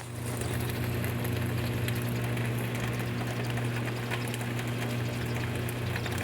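Rain falling, a steady patter of scattered drops, over a constant low mechanical hum.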